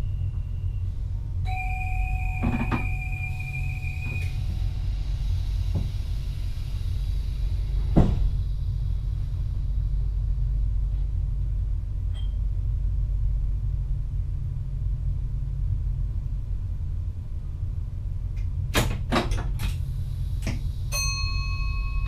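Steady low running rumble of a VIRM double-deck electric train, heard inside the driver's cab. A steady two-pitch electronic beep sounds for about three seconds near the start, a sharp click comes about eight seconds in, a few clicks follow near the end, and another steady tone starts just before the end.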